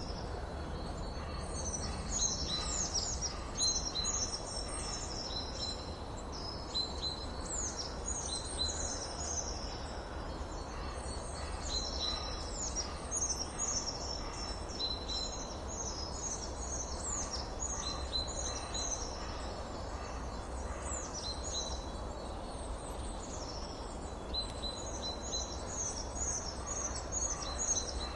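Songbirds chirping and singing: many quick, high, falling notes repeated over and over, over a steady background hiss and low rumble.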